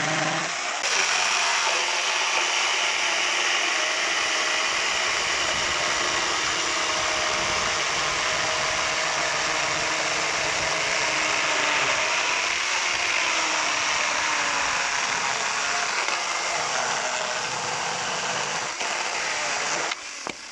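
Ferrex FN-AKS 4030 40 V cordless chainsaw cutting through a thick log. About a second in, the motor's whine gives way to the steady rasp of the chain biting into the wood, and it runs under load until the saw stops at the very end.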